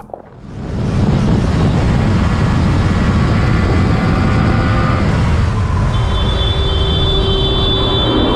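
Yamaha MT naked motorcycle ridden flat out at around 190 km/h: its engine running under loud, steady wind rush on the microphone, building up during the first second. A thin high whine joins about six seconds in.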